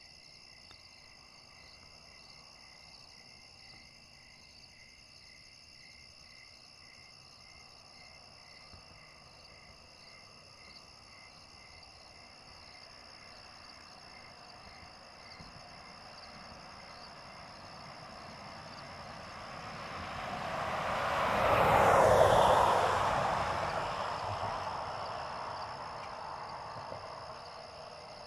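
A vehicle passes by: its noise builds slowly, is loudest a little past the 20-second mark with a falling pitch as it goes by, then fades away. Crickets chirp steadily underneath.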